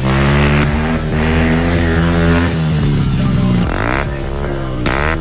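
Honda CRF110 pit bike's single-cylinder engine revving hard through an aftermarket carbon-fibre exhaust. The pitch holds high, sags about three seconds in and climbs back, then dips and rises quickly near the end.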